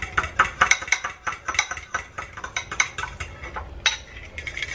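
A spoon stirring garlic butter in a dish, clicking against its sides about four or five times a second, with a brief pause a little past halfway.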